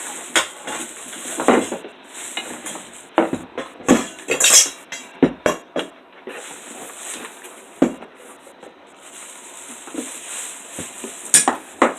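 Parts of a new manual grain mill clinking and knocking together as they are handled and unpacked: a string of separate clinks, busiest in the first half, with two sharp knocks near the end.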